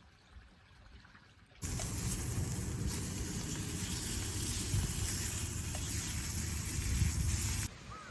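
A loud, steady rushing noise that starts suddenly about a second and a half in and cuts off suddenly near the end.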